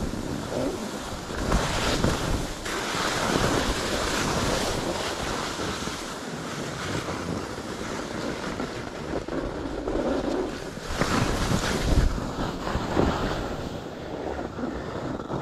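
Skis hissing and scraping over packed snow during a fast downhill run, with wind buffeting the microphone. The scraping swells with each turn, loudest near the start and again toward the end.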